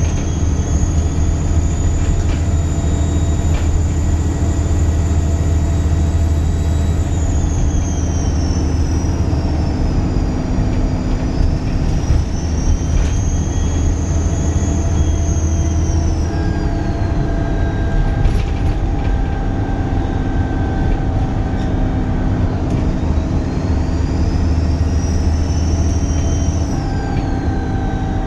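Dennis Trident 2 double-decker bus's diesel engine pulling under load, its turbocharger giving a loud, high squealing whistle. The whistle rises and falls with the engine three times over a steady low engine drone.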